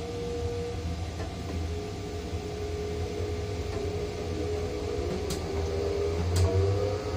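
Potain MC 310 tower crane's drive motors running, heard from inside the operator's cab: a steady low hum with a thin whine that sags and rises slightly in pitch as the load is moved. Two sharp ticks come near the end.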